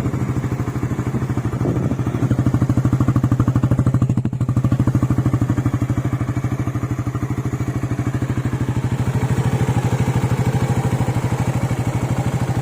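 Suzuki Raider 150 Fi's liquid-cooled 150 cc single-cylinder four-stroke engine idling through its stock exhaust in an exhaust sound check, swelling slightly a couple of times. The owner judges the exhaust still okay after a year of use, though the pipe is rusting and slightly loose.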